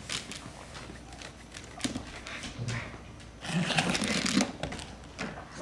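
Plastic teething rings clicking and clacking together as a baby handles and shakes them. About three and a half seconds in, the baby fusses vocally for about a second.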